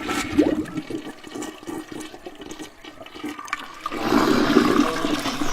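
Toilet flushing: trickling and gurgling water, then about four seconds in a louder rush of water as the bowl empties.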